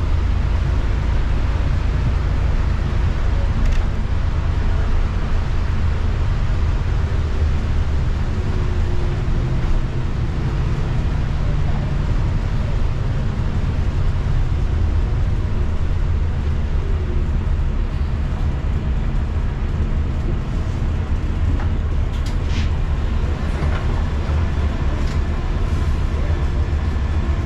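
City bus in motion, heard from inside the passenger cabin: a steady low rumble of engine and drivetrain with tyre hiss from the wet road, and a few light rattles about three quarters of the way through.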